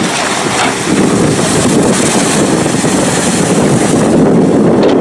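Amphibious bus driving down a ramp into the water, its hull pushing up a steady rush of splashing water.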